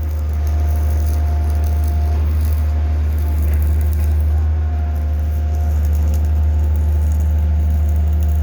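Hydraulic static pile driver's diesel power unit running steadily with a deep drone, a faint thin whine coming and going over it.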